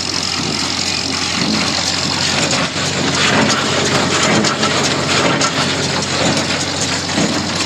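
International Harvester #46 baler running empty off a tractor's PTO at about 540 rpm, a steady mechanical running of engine and baler drive with a fine rapid ticking over it. Freshly greased, it runs quietly.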